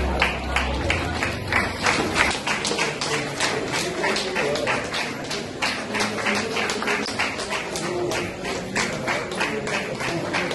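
A crowd clapping in a steady rhythm, about four or five claps a second, with voices murmuring underneath. A low hum is also heard and stops about two seconds in.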